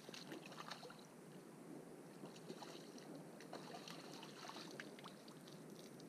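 Faint, scattered small splashes and sloshing of shallow lake water as a trout is scooped into a landing net and lifted out.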